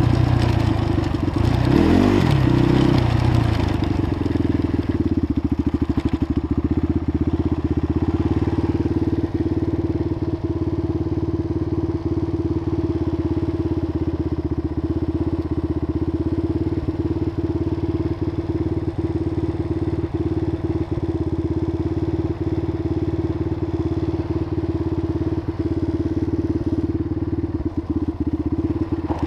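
Polaris Predator 500 ATV's single-cylinder four-stroke engine, running with changes in pitch for the first few seconds, then settling to a steady idle.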